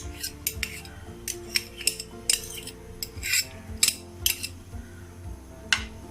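A kitchen utensil clinking and knocking against a mixing bowl in irregular sharp taps as finely chopped onion is put into the mixture, with soft background music underneath.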